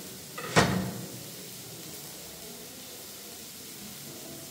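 A single sharp knock of kitchen work, like a pot, lid or utensil set down hard, about half a second in, with a small click just before it. A faint steady hiss runs on beneath it.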